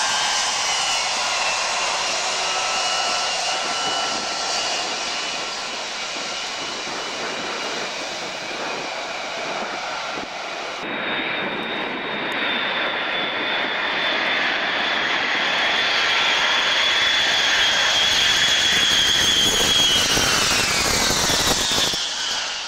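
Four-engine Boeing 707 jet engines running at high power on the takeoff roll and fading. After a cut about halfway through, another four-engine jetliner comes in to land with a steady high engine whine that grows louder, then drops sharply in pitch near the end as it passes and touches down.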